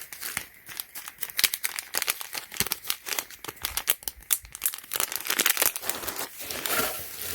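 Packaging being handled during an unboxing: rapid, irregular crinkling and rustling, busiest around five to six seconds in.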